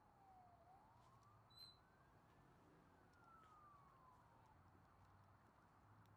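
Near silence, with a faint siren wailing: one slow glide down, up and down again over a few seconds. A short high beep sounds about a second and a half in.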